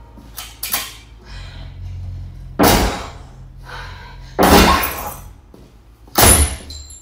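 An action-film soundtrack played loud through a home-theater speaker system driven by a Marantz SR8015 receiver and Tonewinner AD-8300 power amplifier, heard in the room through a phone microphone. It has a low rumble, two small hits near the start, then three heavy crashing bangs about two seconds apart, with sounds like breaking glass.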